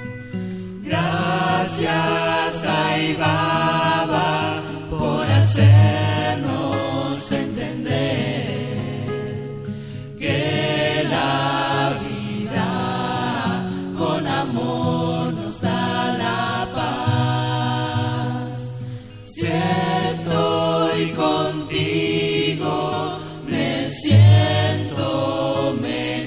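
A group of voices singing a devotional song together over a sustained low instrumental accompaniment, with occasional sharp percussive accents.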